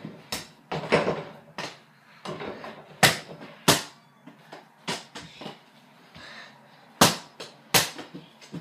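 Small rubber mini basketball bouncing on a hard floor as it is dribbled: a series of sharp thuds. The loudest come in two pairs, one near the middle and one near the end, each pair about three quarters of a second apart.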